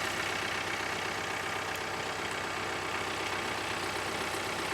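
John Deere 4052R compact tractor's diesel engine idling steadily with the hood open.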